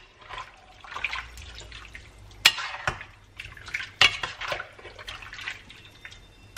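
A metal spoon stirs pork chunks in liquid in a stainless steel pan, scraping and clinking against the pan. Two sharper knocks come about two and a half and four seconds in.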